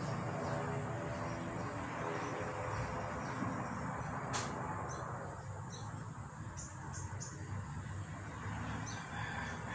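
Outdoor ambience: a steady low rumble under short, high insect chirps scattered throughout, with one sharp click about four and a half seconds in.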